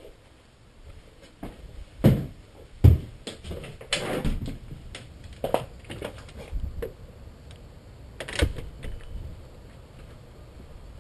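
Irregular knocks, thumps and clatter picked up by a helmet-mounted GoPro HD Motorsports Hero as the wearer goes through a door and outside. The two loudest thumps come about two and three seconds in, with another near eight and a half seconds.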